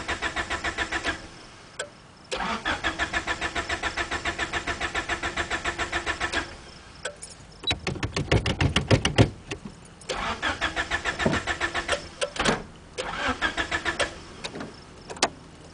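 1990 Honda Accord's starter cranking the engine in several separate attempts, each a fast, even chugging of about five beats a second lasting one to four seconds. The engine fails to catch and run: it won't start.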